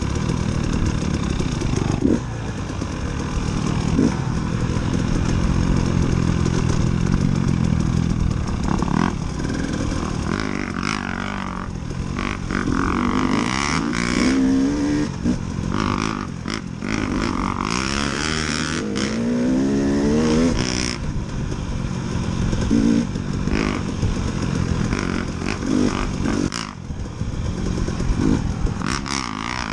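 KTM 300 two-stroke dirt bike engine under way on a rough trail, its revs rising and falling repeatedly with the throttle, along with knocks and rattles from the bike.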